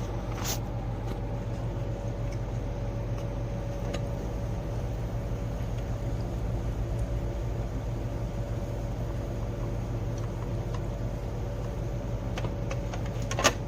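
Steady low mechanical hum with a faint held tone above it and a few light clicks; a louder click comes just before it cuts off at the end.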